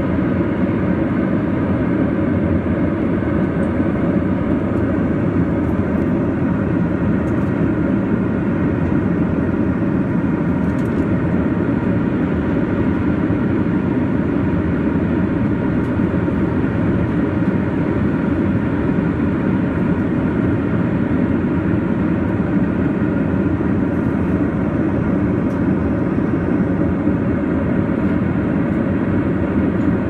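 Steady, unchanging drone of a jet airliner in flight, engine and airflow noise as heard from inside the cabin, with a few faint steady hums in it.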